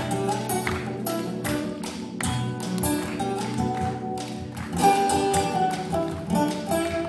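Live band playing an instrumental passage with bass, keyboard and guitar over a steady beat.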